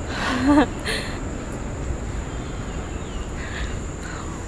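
Steady low rumble on a handheld phone's microphone while climbing stairs, with a short vocal sound rising in pitch in the first second, the loudest moment, and a light click just after.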